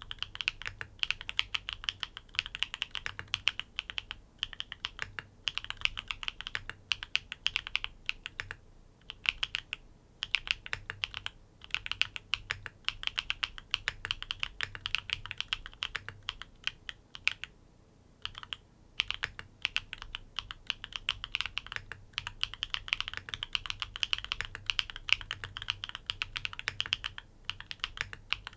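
NEO80 mechanical keyboard with tactile switches, in a gasket mount with dumbbell-shaped gaskets, being typed on quickly in a steady stream of keystrokes. The typing breaks off briefly a few times.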